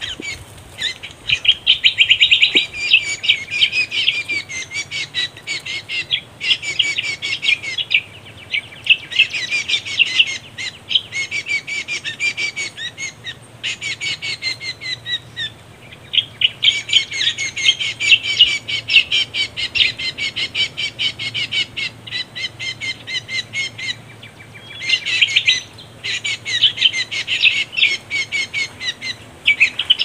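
Birdcall lure recording playing for bird trapping: fast chattering phrases of rapid high notes, each lasting a few seconds with short breaks between them.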